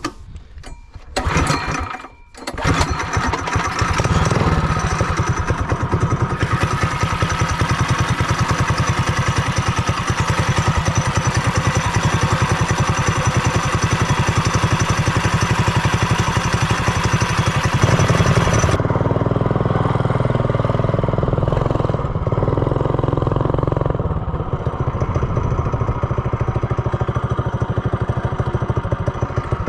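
Small engine with an aftermarket header and stainless steel muffler and its governor disconnected, running under throttle: a few short choppy bursts in the first two seconds, then running steadily and loud.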